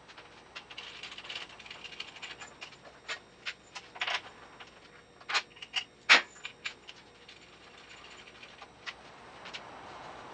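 Scattered clicks, knocks and light rattles of a TIG torch's hoses, cables and fittings being handled at the welder as the water-cooled torch is taken off and the air-cooled one put on. The loudest knock comes about six seconds in.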